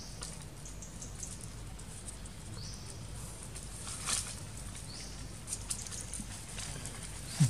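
Outdoor ambience over a steady low rumble: a faint short rising chirp repeats about every two seconds, with scattered soft clicks and rustles, and a brief low thump near the end.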